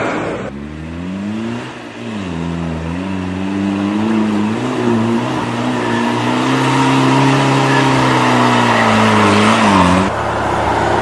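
SUV engine working under load off road, its pitch rising and dipping as the throttle is worked. About ten seconds in it cuts abruptly to a noisier vehicle sound.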